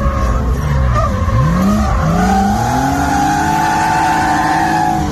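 Drift cars' engines revving hard during a tandem drift, heard from inside one of the cars: the engine note drops, then climbs steeply about a second and a half in, with a steady tyre squeal over it in the second half.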